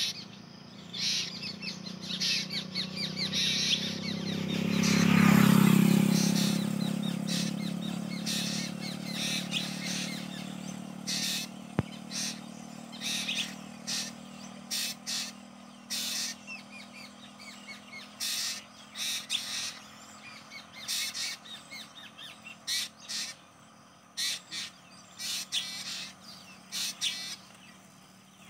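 A pair of black drongos calling back and forth with many short, sharp, high-pitched calls that repeat throughout. A loud low rumble swells and fades about five seconds in.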